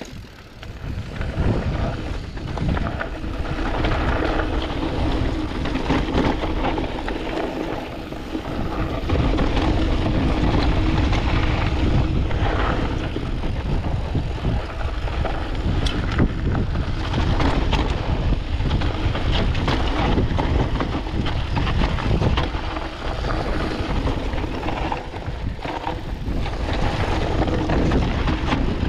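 Canyon Spectral AL 6.0 mountain bike riding down a dusty, rocky trail: tyres crunching over dirt and stones and the bike rattling, with many short knocks. Wind rumbles on the chest-mounted action camera's microphone. The noise builds to full level about a second in.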